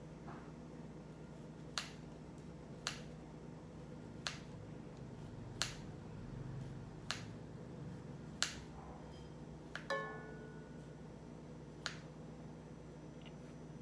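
Kitchen scissors snipping food into a pot: about eight sharp snips, roughly one every second and a half. About ten seconds in, one snip is followed by a short metallic ring, as a blade touches the pot.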